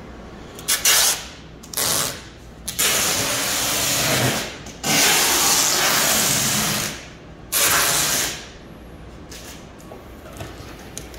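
Packing tape being pulled off the roll in about five loud rasping pulls, two of them long and drawn out, as it is wound around a plastic pet travel crate.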